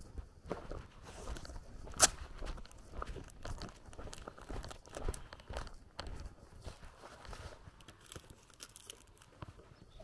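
Footsteps of a person walking, a run of short irregular scuffs and crunches, with one sharp click about two seconds in.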